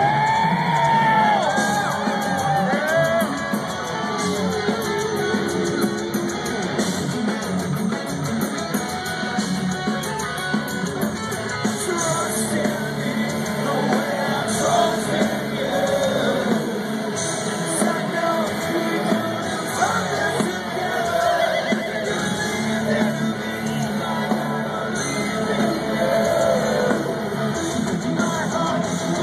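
Live metal band playing loud through a festival PA: distorted electric guitars and drums under sung and yelled vocals, heard from within the crowd.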